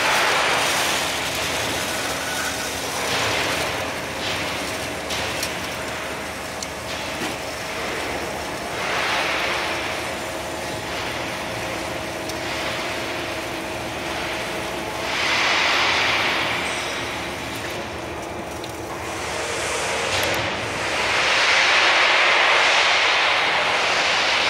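Band saw and drive machinery of an automatic rebar sawing line running: a steady mechanical hum under repeated swells of hissing noise lasting a second or more each, the longest and loudest near the end.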